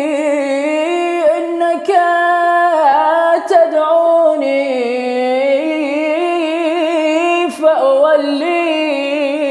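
A solo male voice chants an Arabic supplication without accompaniment, in long melodic phrases with wavering, ornamented held notes and a few short breaks between them.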